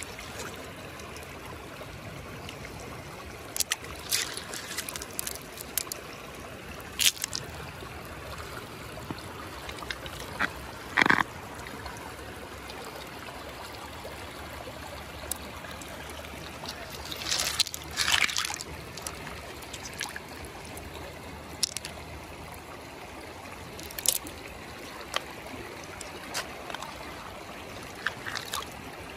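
Shallow river water trickling steadily, with a few short sharp sounds scattered through it, the loudest about eleven seconds in and again around eighteen seconds.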